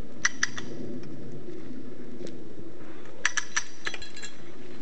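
Sharp metallic clinks from the steel rigging of a hand stump-pulling winch: two just after the start, then a quick run of four about three seconds in, over a steady low hum.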